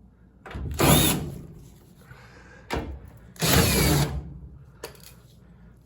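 A power drill-driver runs in two short bursts, backing out two screws from a Kenmore 700 series dryer panel, with a small knock between them.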